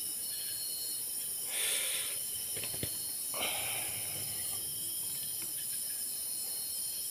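Steady high-pitched night ambience of insects, with two short bursts of noise about two seconds apart and a faint click between them.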